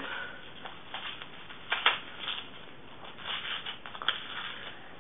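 Wrapping paper rustling and crinkling as a small gift is unwrapped by hand, with a couple of sharper crackles, about two seconds in and again near four seconds.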